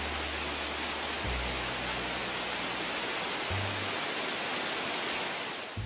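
Steady rushing of water gushing out of a tanker truck's discharge pipe, cutting off suddenly near the end, over background music with low bass notes.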